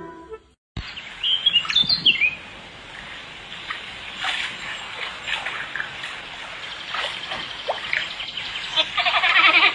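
A bird chirping in short calls over a steady hiss, with a louder burst of calls near the end.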